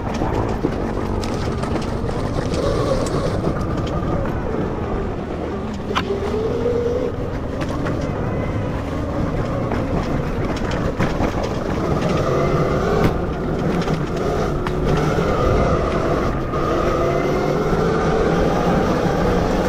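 Electric enduro motorcycle with a 12 kW MG160A motor being ridden: the motor's whine rises and falls with the throttle over a steady low rumble. A few sharp knocks come through, one about six seconds in and another about thirteen seconds in.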